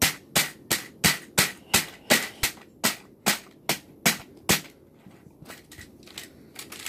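Plastic keycaps snapping off a computer keyboard one after another, sharp clicks about three a second, then a few fainter clicks after about four and a half seconds.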